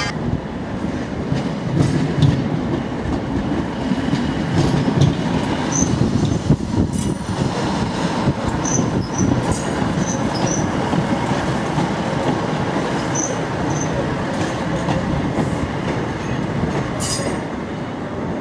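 Class 156 Sprinter diesel multiple unit rolling slowly over pointwork, its underfloor diesel engine rumbling, with several brief high wheel squeals and a few sharp clicks over rail joints.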